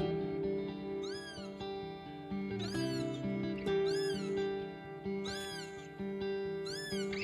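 A kitten meowing five times at an even pace, each meow rising and then falling in pitch, over background music with held notes.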